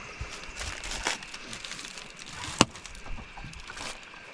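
A few sharp knocks and clicks of gear being handled in a small aluminium fishing boat, the loudest and sharpest about two and a half seconds in, over a faint steady high hum.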